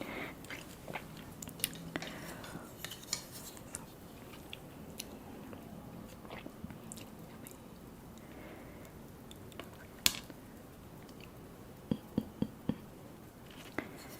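Close-up eating sounds of someone chewing ramen noodles with fish balls and sausage, with scattered sharp clicks of utensils against the bowl, including a quick run of four clicks near the end.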